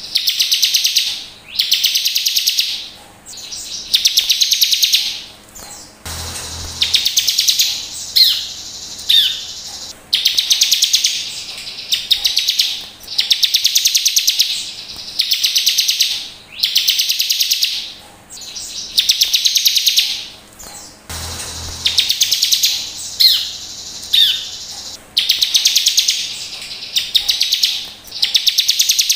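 Bar-winged prinia (ciblek) singing: rapid, buzzy trilled phrases about a second long, repeated over and over with short gaps, with a few sharp higher chirps between some phrases. The same sequence comes round again about every fifteen seconds, as in a looped recording.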